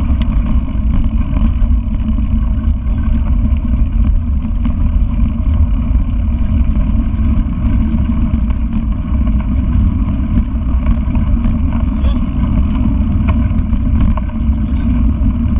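Wind buffeting the microphone of an action camera on a mountain bike riding a rough dirt trail: a steady low rumble, with frequent small rattles and clicks from the bike jolting over the ground.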